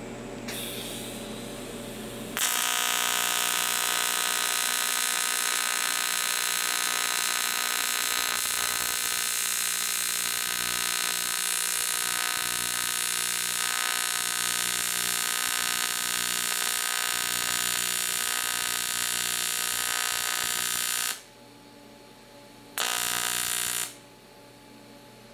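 AC TIG welding arc on aluminum plate: a loud, steady buzz starts about two seconds in and cuts off abruptly near the end, switched straight on and off with no amperage taper. About a second and a half later the arc is tapped on again for about a second and cut off, to fill the crater at the end of the bead.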